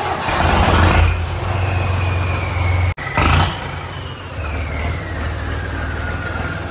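John Deere 5310 tractor's three-cylinder diesel engine just started, loudest in the first second, then running steadily. It revs briefly about three seconds in, then idles with a faint high whistle that slowly falls in pitch.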